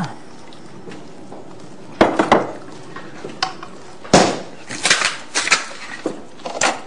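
Plates and cutlery clinking and clattering: a string of sharp knocks starting about two seconds in, the loudest a little past halfway.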